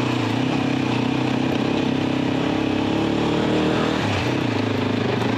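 Motorcycle engine running steadily under way, its revs dipping briefly about four seconds in, with a steady rushing noise over it.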